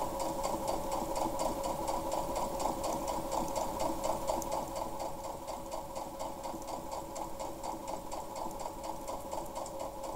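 Electric domestic sewing machine running steadily, its needle stitching in a fast, even rhythm as fabric is fed through. It stops near the end.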